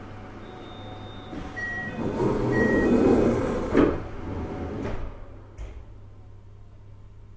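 Passenger doors of a JR Hokkaido 733 series electric train closing at a station stop: two short beeps, then the doors sliding shut and meeting with a knock about four seconds in, over a steady low hum in the car.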